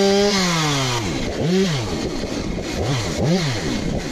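ATV (four-wheeler) engine revving: held high at first, dropping about a second in, then three short throttle blips.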